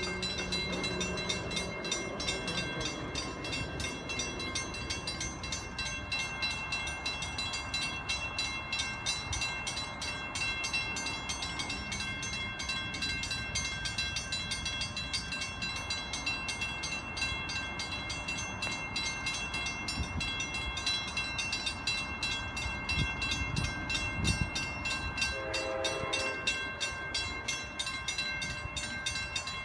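Grade-crossing warning bells ringing steadily with a fast, even strike. About 25 seconds in, the horn of the approaching Amtrak Vermonter sounds once, for about a second.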